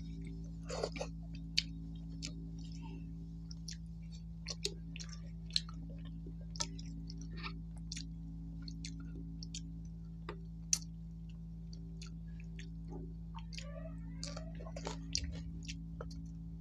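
Close-up chewing of rice and curry eaten by hand, with irregular short wet mouth clicks, over a steady low hum.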